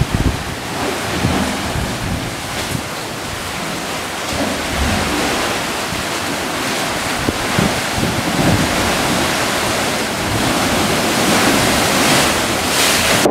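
Ocean surf surging and churning in a narrow rock chasm, with wind buffeting the microphone. The rush of water swells louder near the end.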